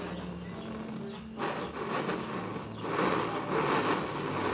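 Gas soldering torch burning with a steady rushing noise, with a fan running; the noise changes about a second and a half in as the flame is moved onto the work.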